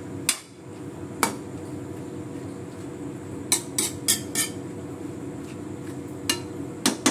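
A spatula clinking and scraping against a metal wok as pancit miki noodles are tossed: eight sharp clinks, four of them in quick succession about three and a half seconds in, over a steady low hum.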